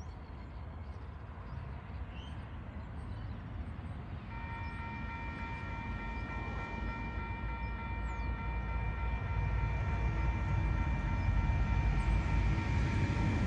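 Approaching diesel freight train, a loaded cement train led by locomotive TR11: a low rumble that grows steadily louder. About four seconds in, a steady high-pitched warning tone of several notes starts and holds without a break.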